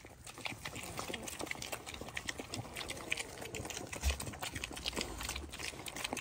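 Several piglets eating pelleted feed from a bowl: rapid wet crunching, chewing and smacking, with a low thump about four seconds in.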